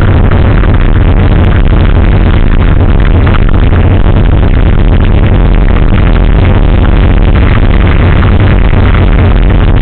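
Loud, distorted electronic dance music with heavy bass, with engine noise mixed in.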